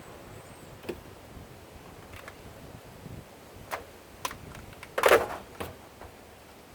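A few scattered knocks and clanks of parts and tools being handled while a washing machine's drain pump is taken out, the loudest about five seconds in with a short ring.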